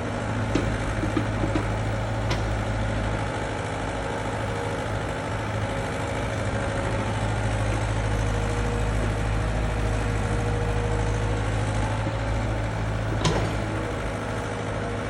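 Excavator's diesel engine running steadily with a deep hum, with a few short knocks, the sharpest about thirteen seconds in.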